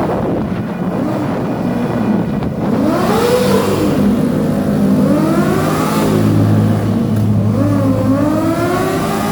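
Kawasaki Ninja ZX-4RR's inline-four engine revving, its pitch rising and falling again and again. A steadier low engine hum joins in about halfway through.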